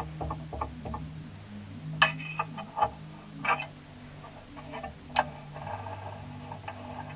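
A woodworking machine runs with a steady low hum, while irregular clicks and knocks sound over it, a few of them sharper in the middle.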